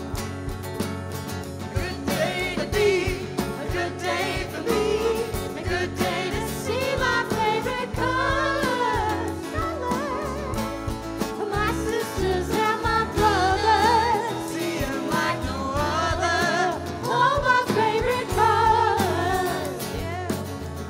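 A live band playing a song, with a singer holding long notes with vibrato over steady bass and accompaniment.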